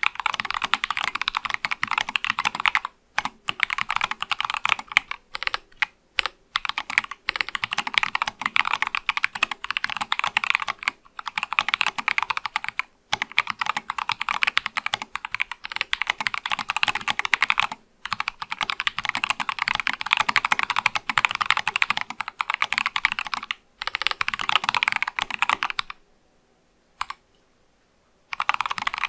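Fast typing on an Acrylic Sesame mechanical keyboard with C3 Kiwi tactile switches: dense runs of keystrokes broken by brief pauses, then a near-silent gap of about two seconds near the end with a single keystroke in it.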